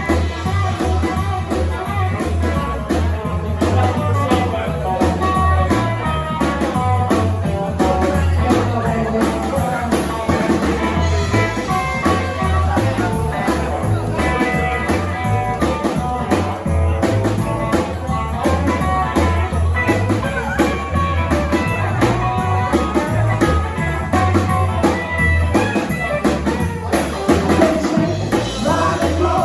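A rock and roll band playing live, with electric guitar, drum kit and singing over a steady beat.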